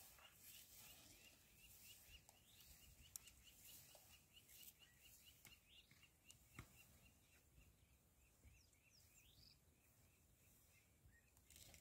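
Faint bush ambience: a bird repeating a short, high chirp about four times a second, with a couple of rising whistles near the end and a few faint clicks.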